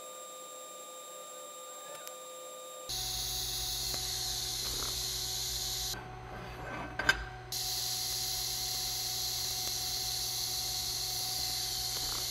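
TIG welding arc on a stainless steel outside corner joint, burning with a steady hiss over a low hum. It starts suddenly about three seconds in and stops around six seconds. A sharp click comes about a second later, then the arc strikes again and keeps running.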